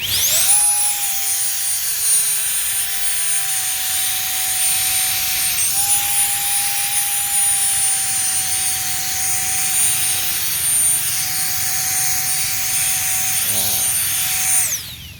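High-power leaf blower starting up with a rising whine, then running steadily: a loud rush of air under a high-pitched motor whine. Its pitch steps up briefly about six seconds in, and it spins down and stops near the end.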